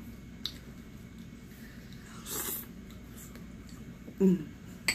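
Close-up eating sounds at a table: light clicks of a plastic fork against a glass bowl, a sniff about halfway through, and a short, loud vocal sound, falling in pitch, a little before the end.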